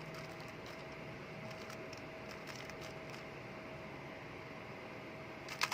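Rubik's Cube layers being turned through an algorithm: a few faint scattered clicks over a steady low hum, then a quick cluster of louder plastic clicks near the end.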